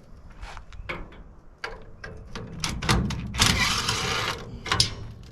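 Metal parts of a golf cart charger clanking and knocking as it is pulled apart by hand, with a harsher metal scrape lasting about a second a little past the middle.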